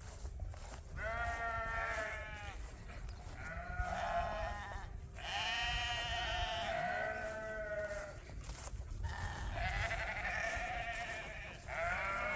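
Lambs bleating, about four long high calls, each falling slightly in pitch, over a low steady rumble.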